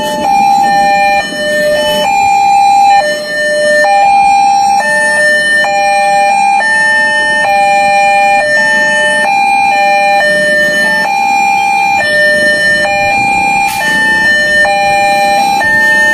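Electronic two-tone railway level-crossing warning alarm that alternates between a lower and a higher tone, switching back and forth unevenly every half second to a second.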